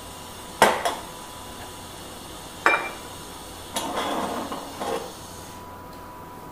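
Crockery and an enamel coffee pot being set down and handled: two sharp clinks just under a second in, another near three seconds, then about a second of rattling and scraping.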